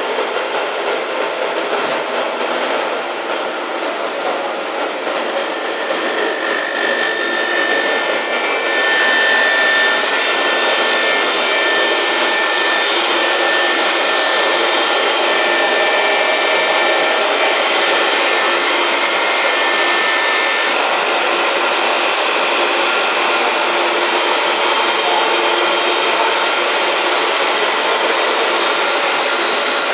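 Bavelloni straight-line glass edging machine running, its water-cooled grinding wheels working the edge of a glass sheet: a steady grinding hiss. It grows louder about nine seconds in, with a thin whine between about seven and twenty seconds in.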